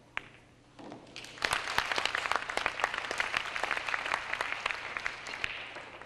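A single sharp click of a cue striking the cue ball, then a tournament audience applauding the shot. The applause starts about a second later, runs for about four seconds and fades near the end.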